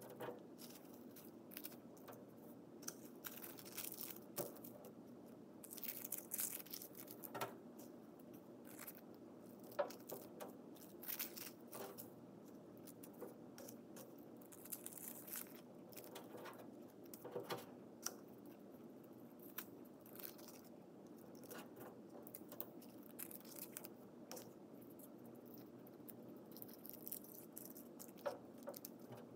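Tissue paper squares handled and pressed onto sticky contact paper: faint, irregular crinkles and light taps.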